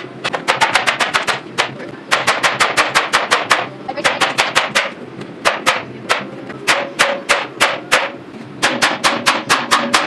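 Rapid gunfire: strings of six to ten sharp shots at about seven a second, broken by short pauses.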